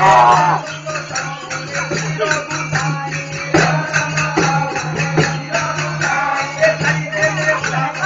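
Live folk-theatre music: a fast, steady percussion beat with rattling jingles over a melody and some singing, with a steady low hum underneath. Recorded through a cheap keypad phone's microphone, which cuts off the high end.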